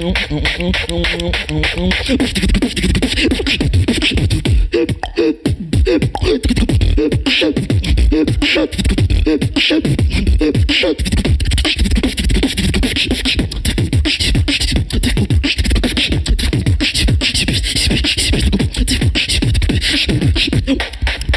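Solo human beatboxing into a handheld microphone: a fast, dense run of mouth-made percussion strokes over low vocal bass notes that slide up and down in pitch.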